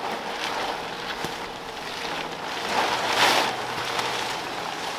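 Large plastic tarpaulin rustling and crinkling as several people haul it up and bunch it together, swelling louder about three seconds in.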